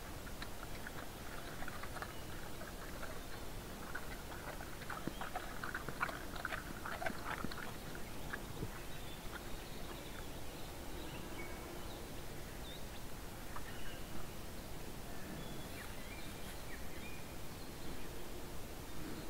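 A bear feeding with its head down in dry grass, crunching and rustling. A dense run of crackles fills the first several seconds, then thins to sparse, faint ticks over a steady background hiss.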